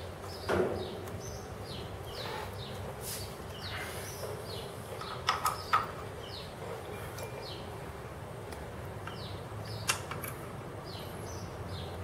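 Metal clicks and knocks as a disc brake caliper is handled and fitted over the rotor, the loudest about half a second in, a small cluster in the middle and one near the end. Short high chirps repeat about twice a second in the background.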